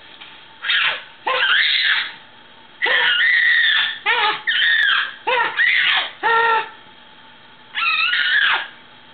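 A baby shrieking and squealing with laughter in about eight short, high-pitched bursts, with a longer pause before the last one.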